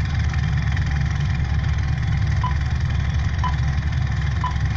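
Film projector running with a steady mechanical whir and clatter, and a short high beep once a second, three times from about halfway in: a film-leader countdown sound effect.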